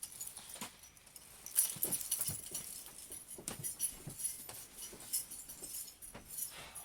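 Scattered clicks and rattles of a spring-powered Tokyo Marui Walther MPL airsoft gun being handled as its magazine is seated.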